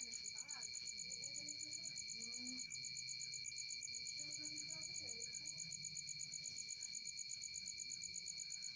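An insect trilling steadily, a high, rapidly pulsing song that does not let up, with faint distant voices underneath.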